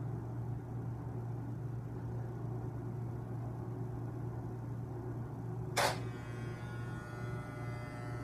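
Corded electric hair clippers running with a steady low buzz, held to a thick beard. A single sharp click about six seconds in.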